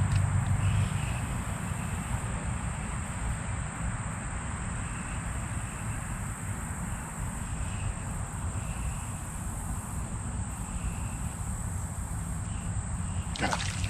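Steady high-pitched buzzing of insects in summer, over a low background rumble, with a short noisy burst near the end.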